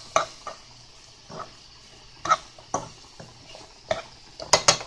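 A utensil knocking and scraping against a frying pan as chicken, onions and peppers are stirred: a few scattered knocks, then a quick run of them near the end, over a faint steady sizzle.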